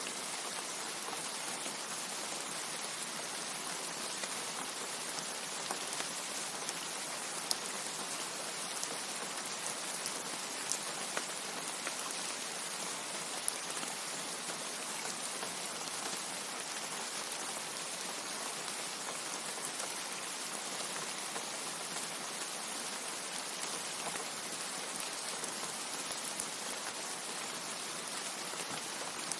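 Steady rain: an even hiss with a few sharper drop ticks now and then.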